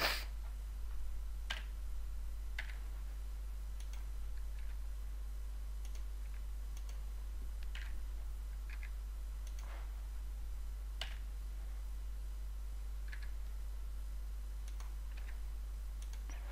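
Sparse, irregular single clicks of a computer mouse and keyboard keys, about a dozen in all, over a steady low hum.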